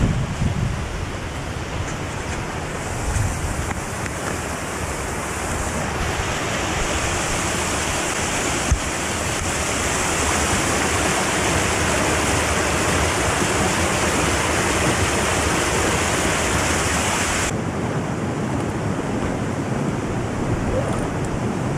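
Steady rush of a stream's flowing water, mixed with wind buffeting the microphone. The hiss grows brighter for several seconds in the middle and then drops off suddenly, with a single click in between.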